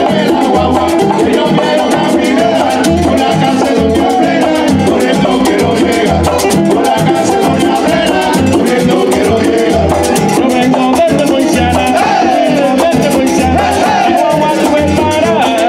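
Live plena music: several panderetas, hand-held frame drums, beat a steady interlocking rhythm while a güiro scrapes, with voices singing over them.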